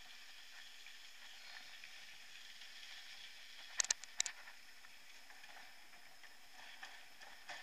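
Mountain bike rolling along a path, a steady hiss of riding noise, with a quick cluster of sharp rattling knocks about four seconds in.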